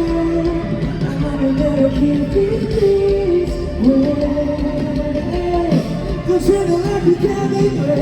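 Live rock band playing a song, with a lead singer holding long, sliding notes over electric guitars and drums.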